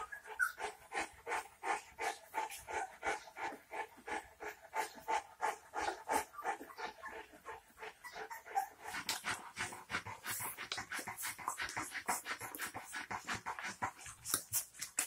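Young St. Bernard puppies whimpering and squeaking, a rapid stream of short cries, several a second, overlapping from more than one pup.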